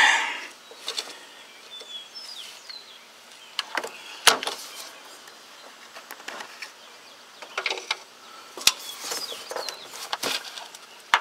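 Scattered sharp clicks and knocks of hand tools against metal fittings while a transmission cooler line is being worked loose in a cramped engine bay, the loudest knocks about four seconds in and near nine seconds.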